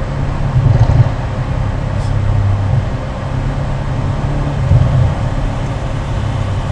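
Mercedes-AMG C63 Estate's 4-litre twin-turbo V8 and exhaust running under way, heard from inside the cabin as a steady low drone that swells louder about a second in and again near five seconds.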